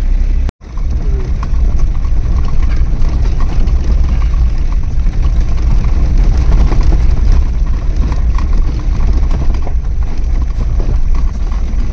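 Car driving over a rough, broken forest road, heard from inside the cabin: a steady low rumble of engine and tyres with irregular knocks and rattles from the bumps.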